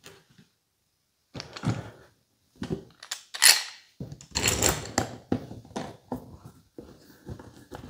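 Clamps being handled and set on a slab-flattening jig: an irregular string of knocks, clicks and scrapes of metal and wood, starting about a second and a half in and loudest in the middle.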